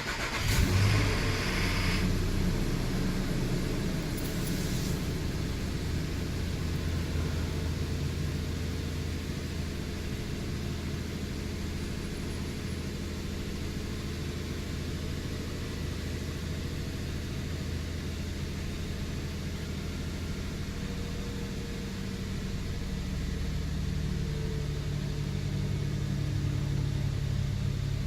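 2007 Nissan Xterra's 4.0-litre V6 starting from cold after sitting for over an hour, with a loud noise over the first couple of seconds, then idling steadily. The start-up noise is the one that comes only on a cold start and is gone on a second, warm start; its cause is unknown to the owner.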